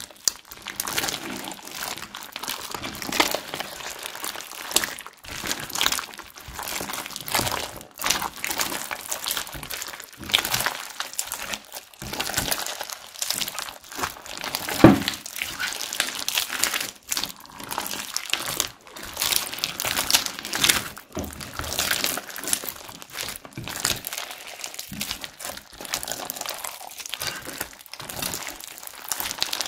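Hands squeezing and kneading crunchy slime mixed with small beads: continuous irregular crackling, clicking and squishing, with one louder pop about halfway through.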